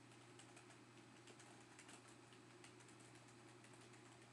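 Faint typing on a computer keyboard: quick, irregular key clicks over a low steady hum.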